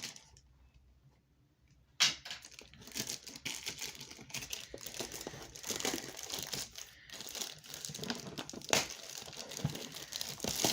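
Toy packaging being unwrapped by hand: continuous crinkling, rustling and tearing of plastic wrap and box material, starting suddenly about two seconds in after a near-silent moment.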